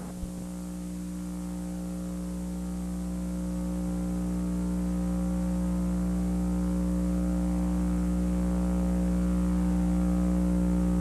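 Steady electrical buzzing hum, one unchanging pitch with many overtones, slowly growing louder.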